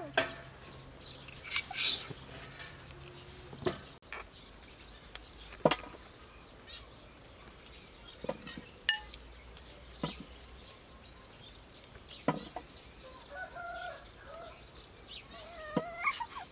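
A kitchen knife cutting and peeling fresh broccoli stems in the hand: separate sharp clicks and snaps, one every second or two.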